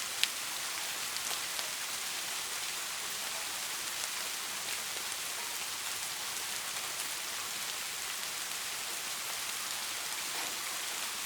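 Steady rain, an even hiss with scattered small ticks of drops. One sharp tick just after the start is the loudest.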